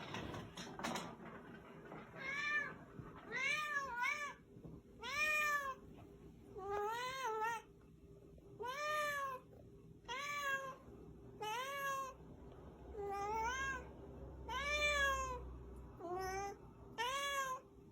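Tuxedo cat meowing over and over, about one meow a second, each call rising and then falling in pitch.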